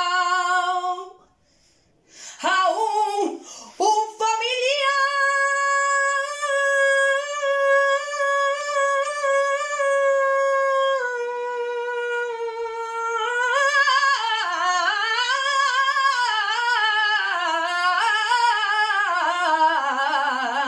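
A female flamenco cantaora sings a fandango unaccompanied. After a breath she holds one long high note. She then runs into a wavering, ornamented line that falls to a lower held note near the end.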